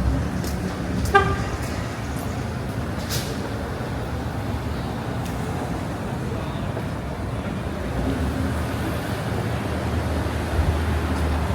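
City street traffic with a steady low rumble of passing vehicles, and a brief horn toot about a second in. A few light clicks are scattered through.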